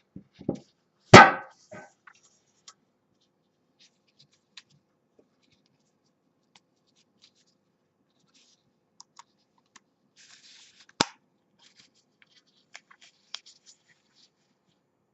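Parts and tools being handled while a TSDZ2 mid-drive motor is taken apart. There is a loud knock with a short ring about a second in, a brief scrape, a sharp click about eleven seconds in, and scattered small clicks between.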